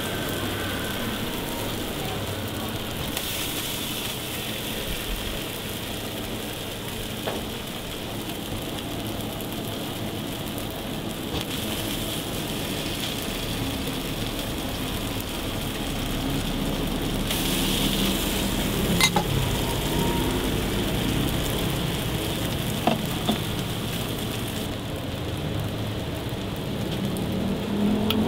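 Raw burger patties sizzling steadily on a hot flat-top griddle, with a few short sharp clicks scattered through.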